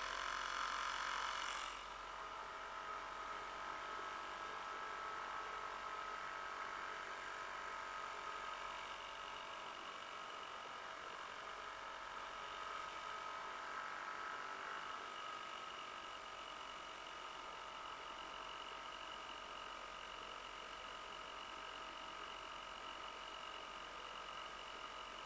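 50-year-old Johnson 2 HP Seahorse two-stroke outboard running steadily at cruising throttle, a steady high-pitched whine. It is louder for about the first two seconds, then settles to a lower, even level.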